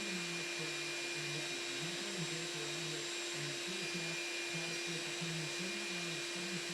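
A steady hum with an even hiss, and a faint, low, wavering melody coming and going beneath it.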